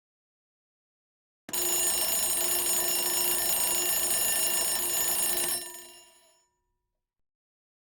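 Alarm bell ringing with a rapid, rattling ring. It starts sharply about a second and a half in, rings steadily for about four seconds, then stops and dies away as the bell rings out.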